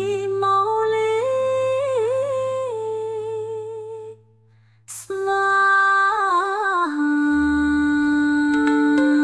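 Devotional mantra chant: a single voice hums or sings long held notes in a slow, gliding melody with small ornamental wavers, over a low steady drone. The voice drops out briefly about four seconds in, then resumes with another held phrase.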